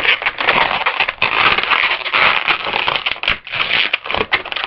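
Latex 260 modelling balloons (Qualatex) being twisted into pinch twists, rubbing against each other and the hands in a dense, crackling rustle.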